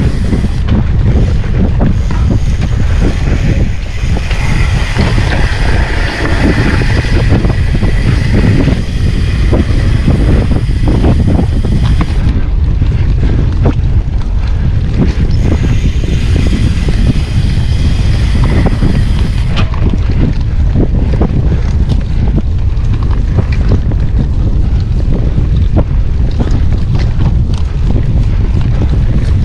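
Mountain bike being ridden on a trail: heavy wind buffeting the microphone, with many small knocks and rattles from the bike over rough ground and a higher hiss that comes and goes.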